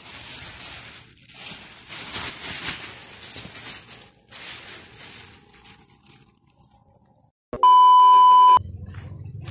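A plastic bag rustling as it is handled for several seconds. After a brief quiet, a loud steady beep lasting about a second: the test tone of a colour-bars screen. A low hum follows it near the end.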